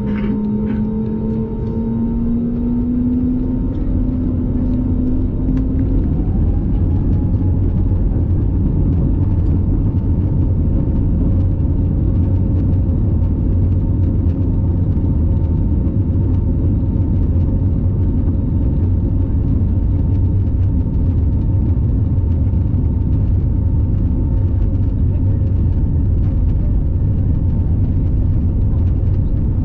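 Airbus A320neo's CFM LEAP-1A turbofan engines spooling up to takeoff thrust, heard inside the cabin: a whine rises over the first six seconds or so. Then loud, steady engine noise with a heavy low rumble from the wheels on the runway carries through the takeoff roll.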